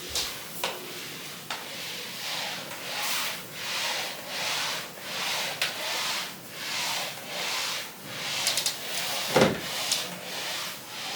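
Rhythmic back-and-forth rubbing strokes on a surface, like scrubbing during cleaning, about three strokes every two seconds. A few light clicks and one sharp knock come near the end.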